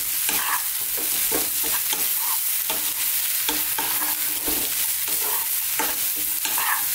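Sliced mushrooms and onions sizzling in hot oil in a small non-stick wok on high heat, while a wooden spatula scrapes and tosses them in irregular strokes about every half second.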